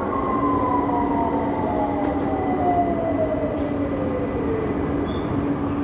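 Victoria line 2009 Tube Stock train heard from inside the carriage, its traction motor whine falling steadily in pitch over the rumble of the wheels as the train slows, typical of braking into a station. A steady hum comes in just after the start.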